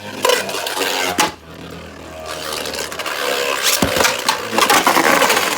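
Two Beyblade spinning tops, one of them 3D-printed, grinding across a plastic stadium floor with a steady scraping hiss, clashing sharply about a second in and again near four seconds.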